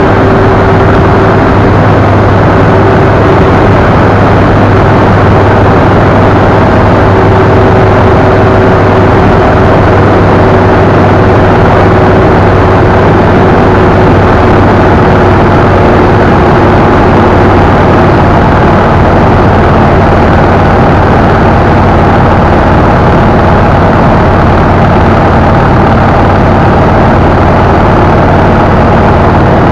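Motorcycle cruising steadily at highway speed: the engine drones under a loud, even rush of wind on the mounted camera.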